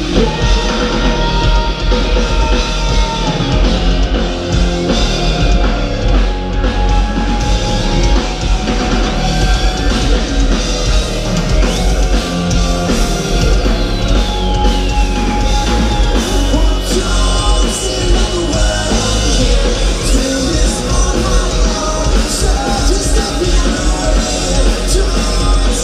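A rock band playing live and loud: drums, electric guitars and bass with singing, heard from among the crowd with a heavy low end.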